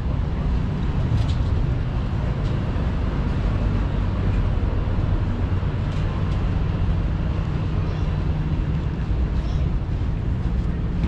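Steady outdoor city ambience: a low, even rumble of road traffic, with a few faint clicks.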